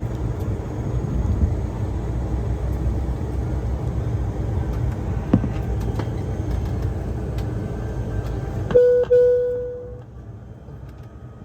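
Steady low rumble of an airliner cabin's ventilation and ground systems before engine start. It cuts off abruptly near the end, with a short steady tone that fades out, leaving a quieter hum.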